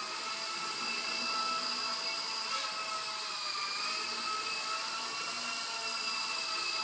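Blade 120 SR sub-micro fixed-pitch RC helicopter flying: its electric motors and spinning rotors make a steady high-pitched whine that wavers slightly in pitch as it manoeuvres.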